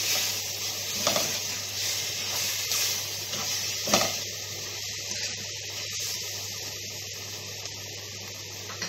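Chicken pieces frying in a pan with onion, garlic, ginger and whole spices, stirred and scraped with a wooden spatula: scraping strokes over a sizzle in the first four seconds, a knock of the spatula against the pan about four seconds in, then a quieter steady sizzle.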